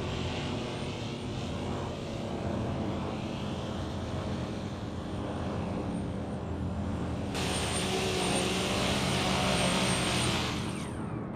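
Twin electric motor-driven rotors of a 3D-printed V-22 Osprey tiltrotor model running in flight, a steady propeller hum. About seven seconds in it gets louder and brighter with the pitch shifting, then it fades near the end.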